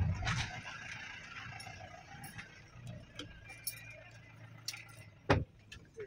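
Low, steady rumble of a moving car heard from inside the cabin, with scattered light clicks and clinks. A single sharp knock stands out about five seconds in.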